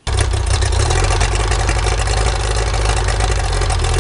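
Tohatsu-Nissan outboard motor idling steadily, fed cooling water through a garden hose at its lower unit, with its newly replaced water pump impeller. It starts abruptly and runs evenly, with no revving.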